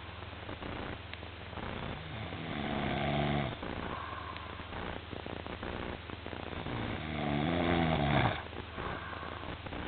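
A sleeper snoring: two long, loud snores about four seconds apart, each lasting over a second, with quieter breathing in between over a low steady hum.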